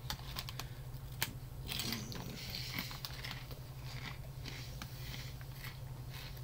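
Crunchy corn cheese curls being chewed close to the microphone: a run of crisp crunches, the sharpest about a second in, thinning out later, over a steady low hum.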